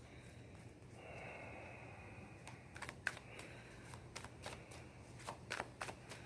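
Tarot cards being handled and shuffled: a soft swish of cards sliding, then a run of light, irregular card clicks and taps.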